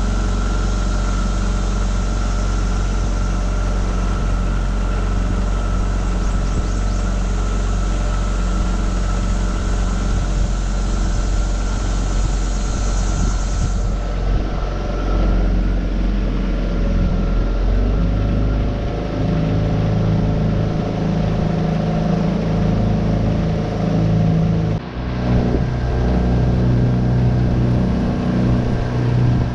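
Tohatsu 9.8 hp four-stroke outboard motor running steadily under way. Its note shifts somewhat about two-thirds of the way through, and there is a brief dip soon after.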